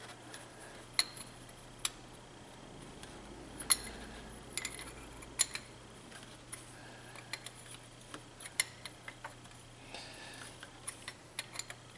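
Steel wrench on a nut welded onto a broken exhaust manifold bolt: scattered sharp metallic clicks and clinks as the wrench is worked back and forth, coming more quickly near the end.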